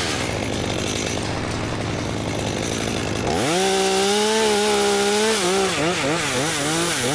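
Stihl two-stroke chainsaw idling, then opened up to full throttle about three seconds in. The high engine note holds, then dips and recovers over and over, briefly falling off near the end.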